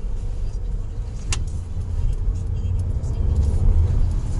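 Low, steady rumble of a car on the move, heard from inside the cabin, with a single sharp click about a second in.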